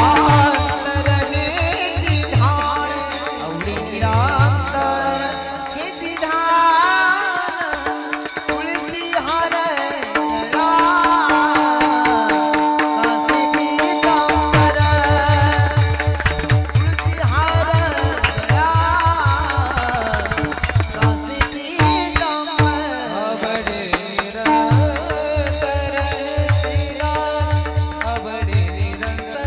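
Devotional kirtan music, a panchpadi: a singer's voice winds through an ornamented melody over a held drone. A hand drum keeps a steady beat in the first few seconds and again from about halfway on.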